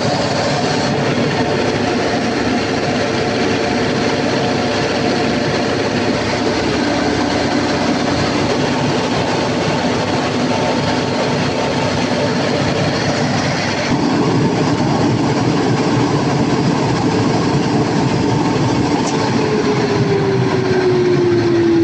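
Freshly overhauled Cummins KTA50 V16 diesel generator set running loud and steady under a load-bank test. It gets louder about 14 seconds in, and near the end one tone in the drone starts falling in pitch.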